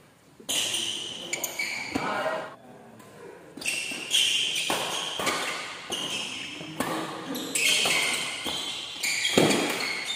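Badminton doubles rally: several sharp racket strikes on the shuttlecock, the loudest near the end, with the players' footwork on the court, echoing in a large hall.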